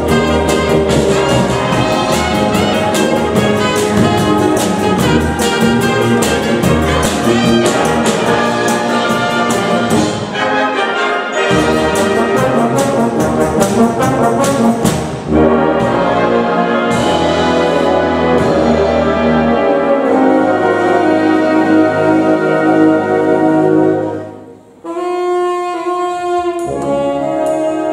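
Symphonic wind band playing an arrangement of 1960s pop songs: full brass and woodwinds over percussion keeping a brisk beat. About halfway through the percussion drops out and the band eases into a softer passage of held chords, then after a brief break near the end a new section starts with short repeated chords.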